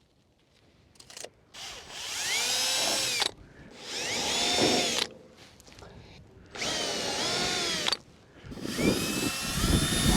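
Power drill running in four short bursts, its motor whine rising in pitch as it spins up and then holding steady, as holes are drilled or screws driven to fix deck railing panels.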